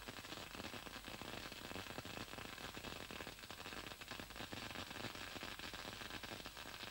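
Faint steady hiss with light crackle: the background noise of the recording.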